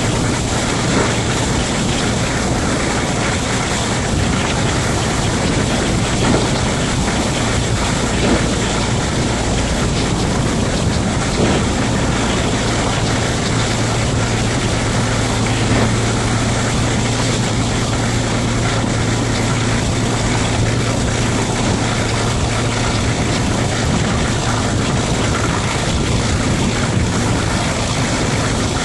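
Diesel locomotive hauling a moving train, its engine giving a steady low hum under the rush of wind and wheel noise.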